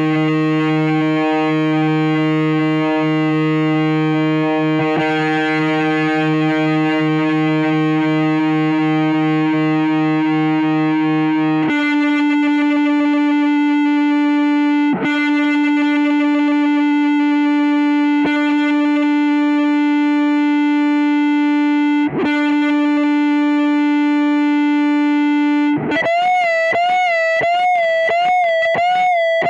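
Electric guitar played through high-gain distortion, sounding long sustained single notes to test sustain and dead spots. One note rings for about twelve seconds, a lower note is then picked three more times and left to ring, and near the end a higher note is held with a wide vibrato.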